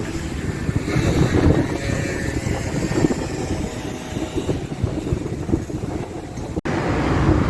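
Outdoor street ambience dominated by wind buffeting the microphone, a steady fluctuating rumble. The sound cuts out for an instant near the end.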